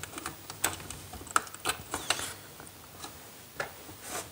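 Irregular light clicks and small scrapes as fingers handle a plastic switchboard and push the stripped end of a copper wire into a brass screw terminal.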